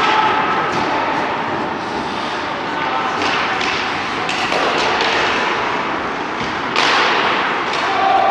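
Ice hockey play in a rink: repeated sharp thuds and cracks of puck, sticks and players against the boards, over a steady haze of rink noise. A louder stretch begins near the end.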